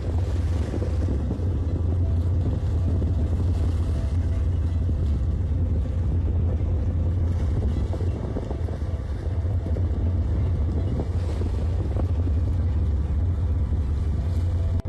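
Boat engine running with a steady low drone, with wind noise on the microphone.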